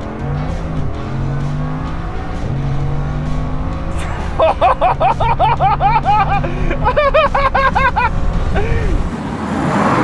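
A car driven hard, its engine note holding and stepping in pitch as it pulls through the gears. About four seconds in, a run of rapid high rising-and-falling squeals lasts several seconds, and a rush of noise follows near the end.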